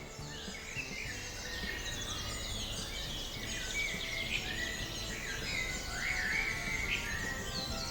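Many birds chirping and singing in quick, overlapping calls, over a steady low background noise.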